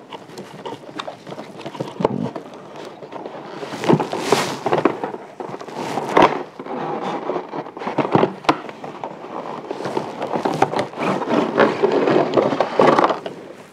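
Cardboard box of a vibrating massager being opened and its clear plastic tray slid out: rustling, scraping and crackling of cardboard and plastic packaging, with many sharp clicks and taps and a longer scrape about four seconds in.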